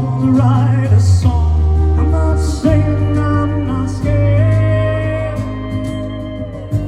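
Live country band playing, with guitar and sustained bass notes under a long, wavering held sung note in the middle.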